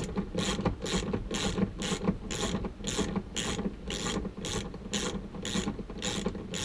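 Socket ratchet clicking in quick, even strokes, about three a second, as a 14 mm bolt is backed out.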